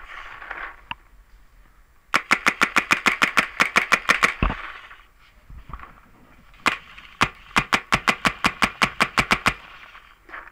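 Paintball marker, a DP G5, firing two rapid strings of shots at about nine a second. The first string starts about two seconds in, the second about seven seconds in, with a short gap between them.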